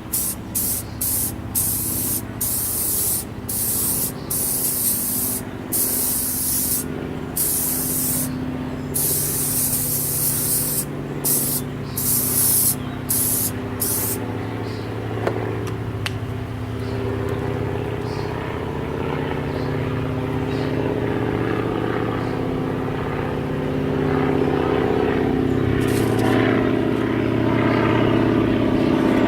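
Loctite aerosol spray adhesive being sprayed onto a fabric patch in a quick string of short hissing bursts, about fifteen of them, stopping about halfway through. Under it a low steady drone that grows louder toward the end.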